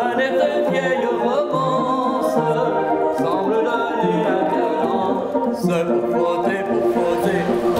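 A man singing a song over the sustained notes of a hand-cranked barrel organ, continuous music throughout.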